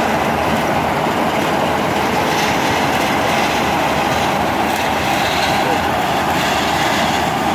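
KS 9300 combine harvester with a Super Straw System attachment running under load as it harvests, making a loud, steady mechanical noise without pause.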